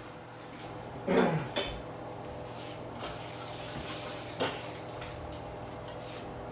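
Bowls, plates and spoons clinking at a dining table, a few sharp clinks over a steady faint hum.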